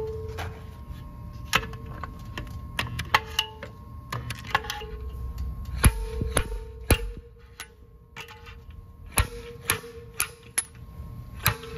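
Stud-welder dent puller welding pins onto a motorcycle's metal gas tank: irregular sharp snaps and clicks, several followed by a short steady hum lasting up to about a second and a half.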